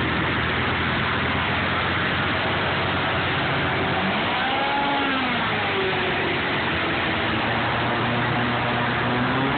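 Airboat engine and propeller running steadily under way. The engine pitch swings up and then back down a few seconds in, and again near the end.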